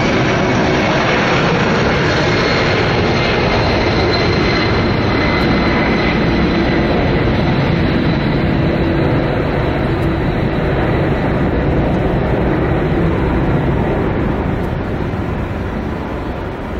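Boeing C-17 Globemaster III's four turbofan engines at takeoff power: a loud, steady jet noise with a high whine that slowly falls in pitch, growing duller and fading near the end as the aircraft climbs away.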